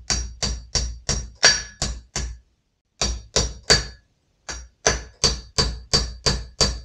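Steel roll pins being hammered into a bolt: quick, evenly spaced metal-on-metal hammer blows about three a second, each with a short ring. The blows stop briefly twice.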